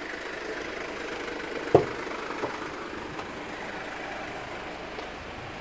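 A vehicle engine idling steadily, with one sharp knock a little under two seconds in.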